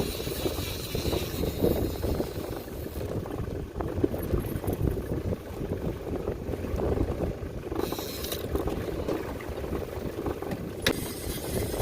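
Wind buffeting the microphone, a steady, uneven rumble, with water noise around a small open boat; a single sharp click near the end.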